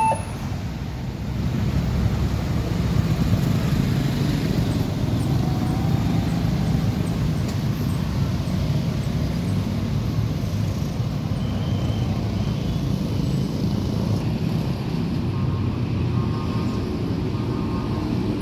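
Road traffic of motorcycles and cars moving through a railway level crossing, a steady rumble of engines and tyres. The crossing's warning alarm tone cuts off just at the start.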